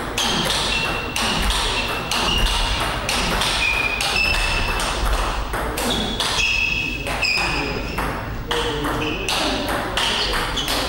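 Table tennis rally: the ball clicking off the paddles and pinging on the table, about two hits a second in a long, unbroken exchange.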